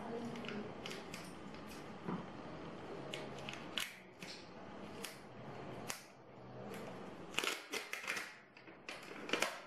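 Thin plastic optical sheets from an iPhone 6 LCD backlight being peeled apart and handled, giving irregular crackles and clicks. A cluster of louder crinkles comes near the end as a reflective sheet is crumpled in the hands.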